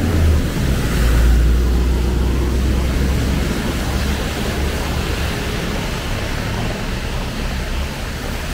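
Street traffic: a vehicle's engine rumbling low and close, over a steady wash of road noise.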